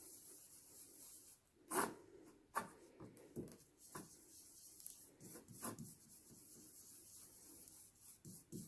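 Ink-blending brush rubbed over a vellum doily on cardstock: a faint, soft scrubbing, then a series of short scuffing strokes.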